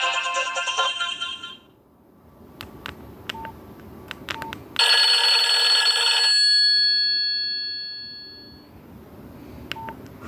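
Nokia 6131 mobile phone's speaker playing tones: a polyphonic ringtone fades out over the first second or so. Then come a few clicks and short beeps, and about five seconds in a bright chime-like tone sounds and rings out with several steady pitches for about three seconds. More clicks and short beeps follow near the end.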